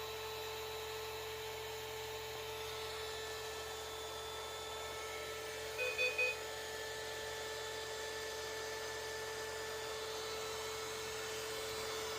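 Steady high electric whine of the RC excavator's running pump motor, with three short electronic beeps in quick succession about halfway through.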